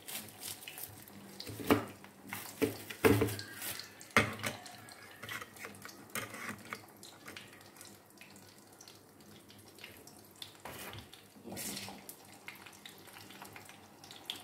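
Potato and chana dal kababs shallow-frying in hot oil in a pan, a steady sizzle. A few sharp knocks and rustles come in the first few seconds and again near the end.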